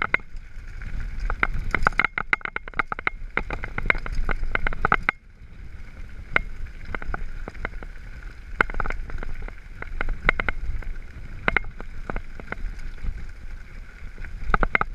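Mountain bike riding over a rough gravel track: a low rumble of tyres on stones, with quick, irregular rattling clicks from the bike as it jolts over each bump. It runs smoother and quieter for a moment about five seconds in.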